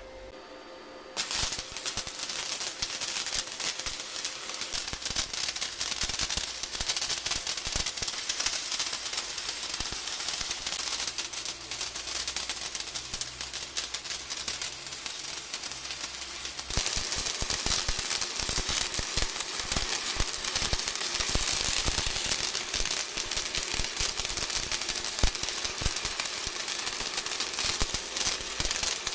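Stick (MMA) arc welding: the electrode's arc crackling and sizzling steadily, starting about a second in and growing louder just past halfway.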